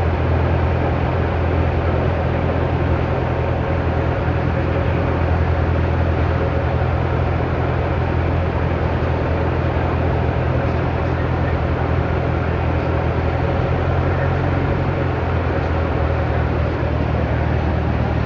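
Cessna 172's engine and propeller droning steadily, heard from inside the cockpit as a loud, even drone with a low hum.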